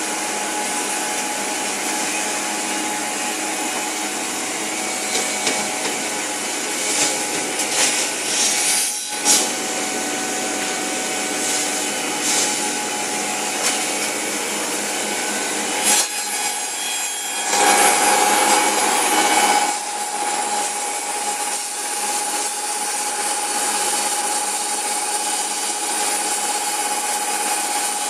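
Two-head cutting and milling machine running with a steady whine, with louder cutting passes about a quarter of the way in and again past the middle.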